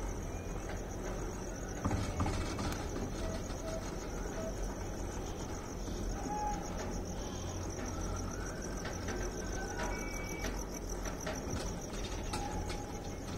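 Crickets trilling steadily and high-pitched, over a steady low rumble, with a few faint clicks and a brief knock about two seconds in.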